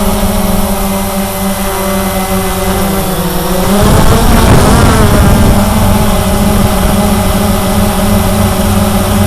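Cheerson CX-20 quadcopter's brushless motors and propellers running, with a steady hum under a higher whine. The whine dips in pitch about three seconds in and rises again a second later as the motors change speed.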